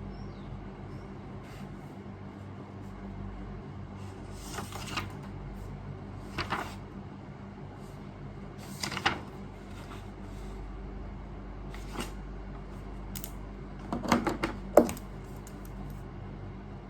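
Objects being handled: a few brief clinks and knocks spaced a couple of seconds apart, then a quick cluster of sharper knocks near the end, over a steady low hum.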